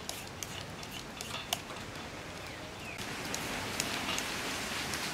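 Knife cutting pieces from a green papaya held in the hand, a series of crisp clicks as it cuts into the firm fruit, over a steady hiss that grows louder about three seconds in.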